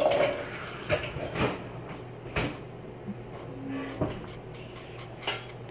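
A handful of sharp knocks and clicks, about five spread across a few seconds, like household objects being set down or handled, over a quiet room background.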